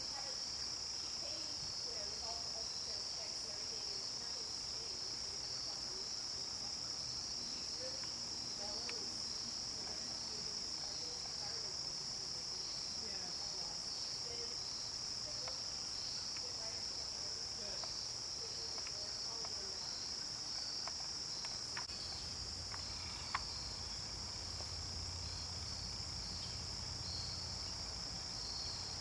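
Steady high-pitched chorus of crickets in autumn woodland, running throughout with a slight pulse. A sharp click comes about 23 seconds in, and a low rumble begins shortly before it.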